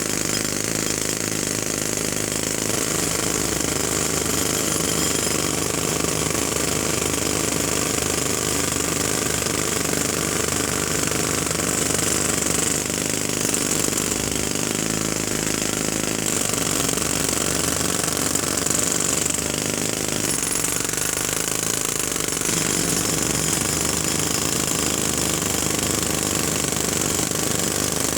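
Jackhammer hammering continuously with rapid, even blows at a steady loudness.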